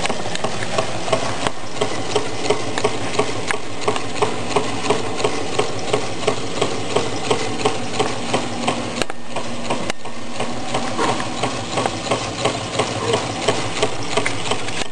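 Meccano-built Stirling engine running, knocking steadily at about two and a half knocks a second. The knock is the displacer banging the bottom end of its cylinder, a mechanical noise of crude construction rather than of the engine's working.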